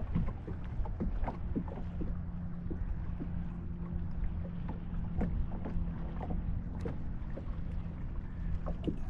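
A just-landed smallmouth bass flopping and being handled in a fishing boat: scattered small knocks and taps over a steady low rumble. A low steady hum comes in about two seconds in, fades a little past halfway, and returns near the end.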